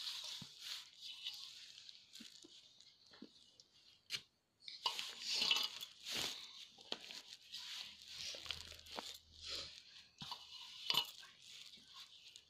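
Hands kneading crumbly maida dough made with ghee and a little water: an irregular crunching, scrunching rustle as the dough is squeezed and pulled apart, with a brief pause about four seconds in.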